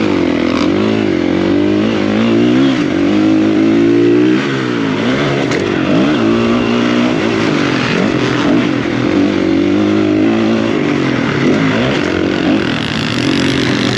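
Dirt bike engine revving up and down repeatedly as the rider accelerates, shifts and rolls off through corners and straights on a motocross track.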